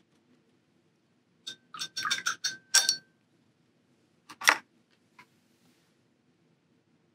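A quick run of small hard clinks and taps with a faint ringing, from painting gear being handled and set down on the work table. About four and a half seconds in comes one sharp, louder knock as a hand reaches over and touches the camera.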